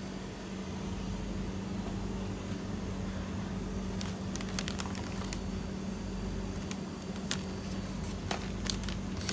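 Steady low mechanical hum of a small shop's room tone, with a few faint sharp clicks in the second half.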